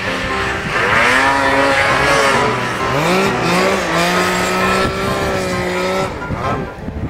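Snowmobile engine revving hard, its pitch rising and falling as the throttle is worked, then holding a steady high rev before it drops away about six seconds in.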